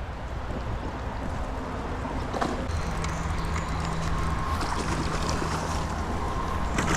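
Poudre River water rushing steadily, with wind on the microphone.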